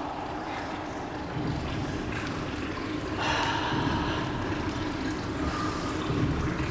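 Water running and splashing at a marble hamam basin while a bather's soaped head is scrubbed and rinsed.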